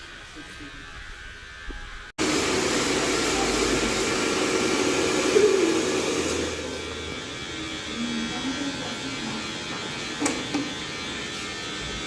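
Electric hair clippers buzzing steadily during a haircut. About two seconds in, the sound breaks off abruptly and comes back much louder and closer, easing a little after a few seconds.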